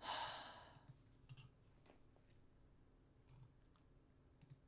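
A short breathy hiss at the very start, then a few faint, scattered computer clicks against near silence.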